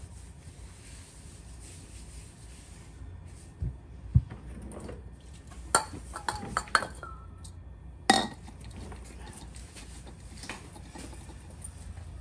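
Scattered metallic clinks and knocks of hand work under a car, with a cluster of clinks about six seconds in and a sharp knock about eight seconds in.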